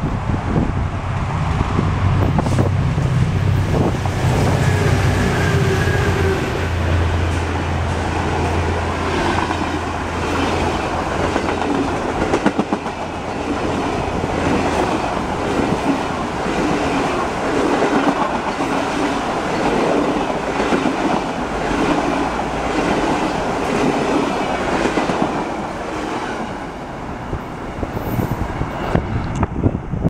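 Via Rail passenger train passing close by. A low, steady diesel locomotive drone fills the first ten seconds or so as it approaches and goes by. Then the coaches' wheels clatter over the rail joints in a steady rhythm, easing off near the end as the train moves away.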